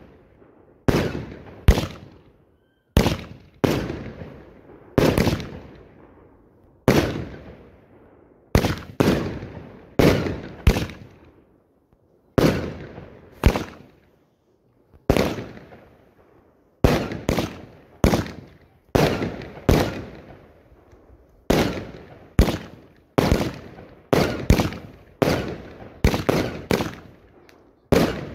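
Fireworks display heard from the firing site: a string of loud bangs, roughly one a second, each trailing off in a rumbling echo. The bangs come faster in the second half.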